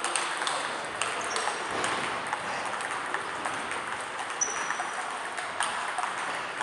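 Table tennis balls clicking off bats and the table in a doubles rally, with more irregular ticks from other tables over a steady background noise.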